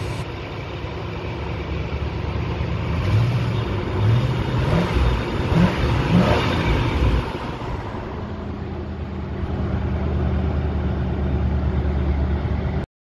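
1997 Ford Explorer's 5.0 (302) V8, with GT40 heads, a Flowmaster Flow Monster two-chamber muffler and the stock air intake, idling, then blipped several times in quick succession about three to seven seconds in before settling back to a steady idle.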